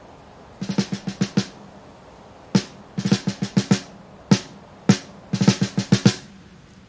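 Recorded music: a drum kit plays a sparse opening pattern, quick runs of five or six drum strikes alternating with single hits and short pauses between them.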